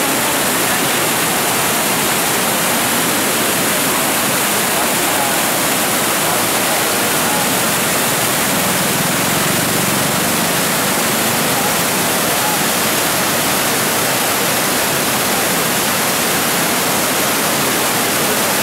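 Floodwater rushing out past the concrete piers of a reservoir's spillway gates, a loud, steady churning rush of white water.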